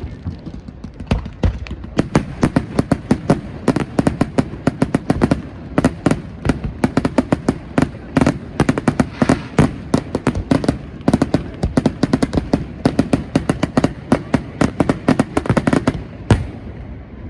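Fireworks display: a rapid barrage of sharp bangs and shell bursts, several a second. It is sparser for the first couple of seconds and thins out near the end.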